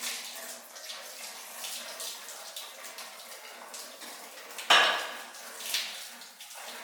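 Water running and splashing, with metal parts clinking and knocking together and one sharp clatter about two-thirds of the way in.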